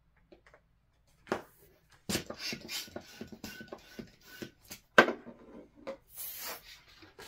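Hand balloon pump inflating a green 260 twisting balloon: a quick run of rasping pump strokes, about three a second, starting about two seconds in. A sharp click comes about five seconds in, and a brief hiss near the end.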